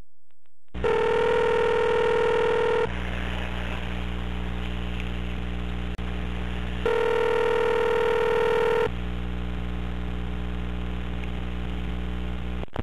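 North American telephone ringback tone heard down the phone line: two two-second tones about four seconds apart, over a steady line hum. The called pay phone is ringing and has not yet been answered.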